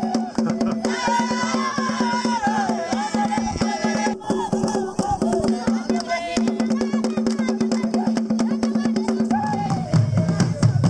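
Traditional Rwandan drumming with singing: fast drumbeats under a wavering sung melody and a held low tone, with a deeper sound coming in near the end.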